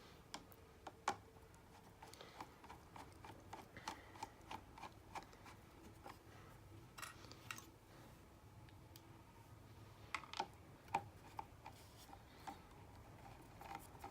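Faint, scattered clicks and light scrapes of a screwdriver driving the screws of a switch cover plate and of the plate being handled.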